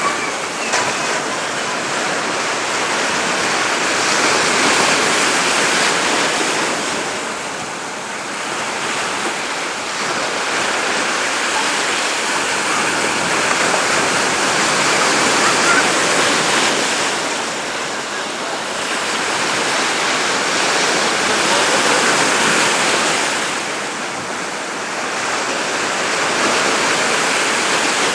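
Sea surf breaking and washing around the waders, a loud steady rush that swells and eases every several seconds as each wave comes in.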